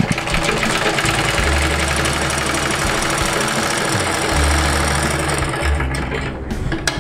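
Domestic sewing machine running fast, stitching a test seam through cloth: a steady rapid clatter with a low hum, stopping shortly before the end. The seam is a test run to show whether the upper or the lower (bobbin) stitch is faulty.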